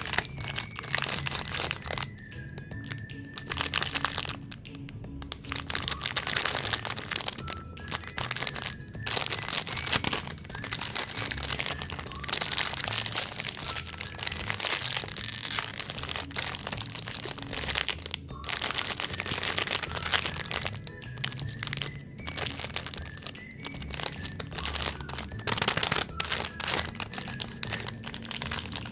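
Plastic snack wrappers crinkling and crackling as packaged cakes and cookies are handled and unwrapped, with sharp crunchy crackles, in a dense run with only brief pauses. Soft background music plays underneath.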